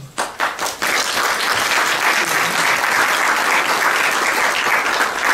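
Audience applauding: a few separate claps at first, building within about a second into full, steady applause.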